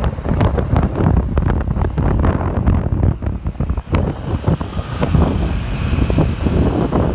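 Road traffic running past, with heavy wind buffeting on the microphone.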